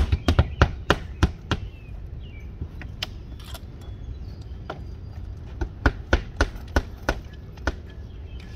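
Hammers nailing vinyl siding panels to the wall through their top nailing edge: runs of sharp, separate strikes, a quick flurry at the start, a few blows around three seconds in, and another run about six to seven and a half seconds in.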